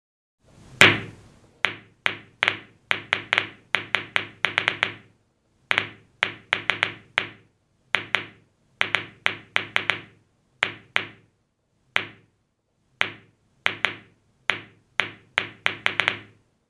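Ball-bounce sound effects: a long irregular string of short sharp taps, one for each impact of a ball on the floor. The loudest tap comes about a second in, when the dropped balls first land together. After that the taps come thick and fast, then further apart as more balls come to rest.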